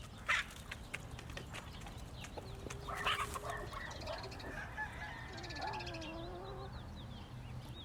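Backyard chickens calling softly: a drawn-out call a few seconds in and a wavering one later, with faint high chirps near the end.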